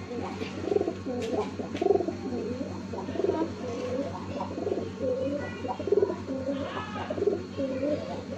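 Domestic pigeons cooing over and over, one low coo after another with hardly a pause, with a few faint clicks. This is the display cooing (bekur) of caged pigeons at a newly introduced bird.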